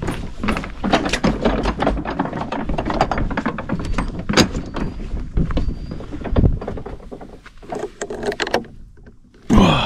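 Footsteps on the wooden planks of a lakeside jetty, a string of irregular knocks from the boards underfoot, then a short louder sound just before the end.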